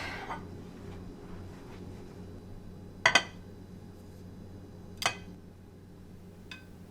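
Tableware clinking: two sharp clinks about two seconds apart and a fainter tick near the end, over a low steady hum.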